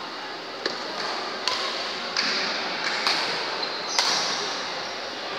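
Badminton rally: a racket strikes the shuttlecock about five times, a sharp crack roughly every second, over a steady background hubbub.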